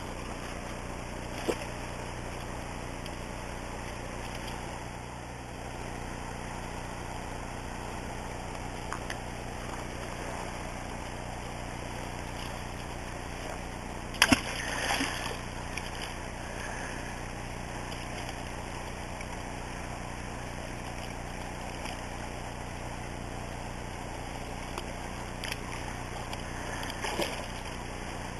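Quiet, steady noise of shallow river water at a rocky bank, broken by a few small clicks and one short splash about fourteen seconds in as a dog steps among the stones and into the water.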